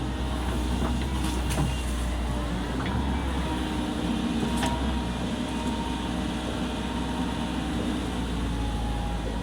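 Komatsu PC135 excavator's diesel engine running steadily under work, with a faint whine that shifts a little in pitch. A few sharp knocks come about a second and a half in, and one more near halfway.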